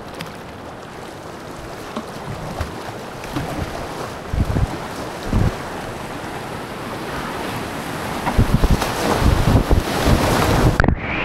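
Rushing whitewater around a kayak running a river rapid, growing louder as the boat drops into the white water, with wind buffeting the camera's microphone in low gusts. Near the end the sound turns suddenly muffled.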